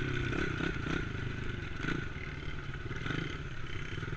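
Yamaha TT-R110 dirt bike's small single-cylinder four-stroke engine running at low revs after the throttle is eased off, its note wavering up and down, with the bike rattling as it rolls over bumpy grass.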